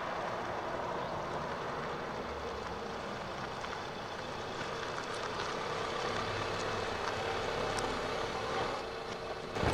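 Steady noise of a vehicle, an even rumble with a faint low hum swelling in the middle.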